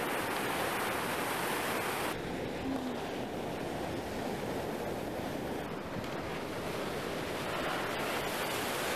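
Ocean surf washing in on the shore below, a steady wash of noise, with some wind on the microphone. The higher hiss drops off suddenly about two seconds in.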